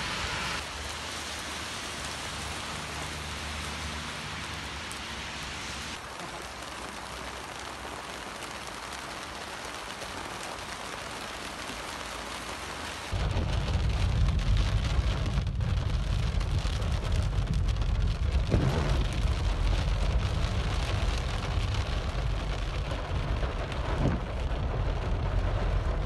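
Steady rain falling on wet roads and pavement, an even hiss. About halfway through, a loud low rumble sets in under the rain, with a few brief knocks later on.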